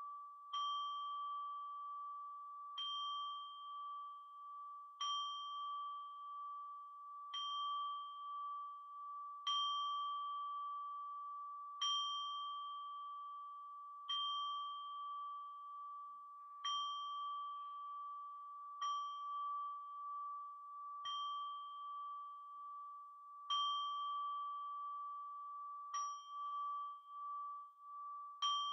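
A small bowl bell struck at a slow, even pace, roughly every two and a half seconds, about thirteen times. Each strike rings on one high, clear tone that is still sounding when the next strike comes.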